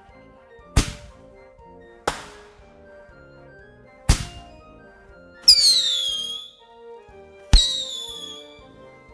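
Firework and firecracker reports over background music. Three sharp bangs come a second or two apart, then two more bangs, each followed by a falling whistle lasting about a second.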